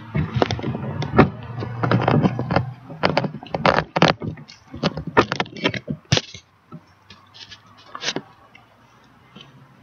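Close knocks, scrapes and rustles of the camera being handled and repositioned, many irregular clicks for about six seconds, then only a few faint ones.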